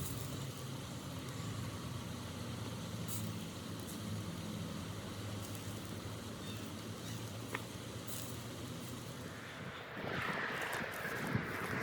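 A steady low engine hum, like a vehicle running. About ten seconds in it gives way to a louder rushing noise.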